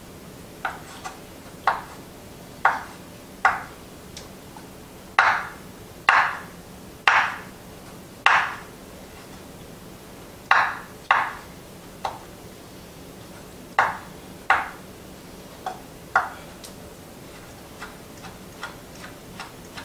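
Kitchen knife roughly chopping olives on a cutting board: irregular sharp knocks about once a second, turning lighter and quicker near the end.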